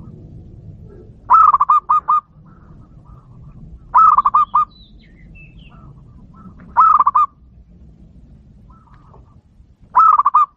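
Zebra dove (perkutut) singing: four short cooing phrases, each a quick run of four or five repeated notes, coming about every three seconds.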